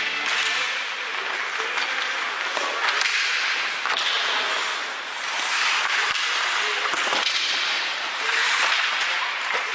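Ice hockey play: skate blades scraping across the ice in swelling hisses, broken by several sharp cracks of sticks and puck.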